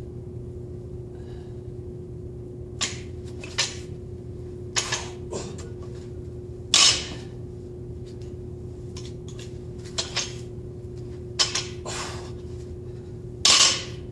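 A weightlifter bent over a loaded barbell takes a run of short, sharp breaths at irregular intervals, with two longer, louder huffs near the middle and near the end, over a steady background hum.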